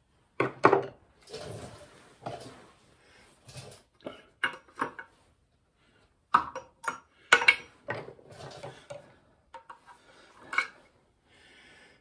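Hand tools clinking and scraping on steel: pliers and a punch working cotter pins out of the connecting-rod bolts on a 1928 Ford Model A engine. Irregular metallic clicks, with a few sharper clinks scattered through it.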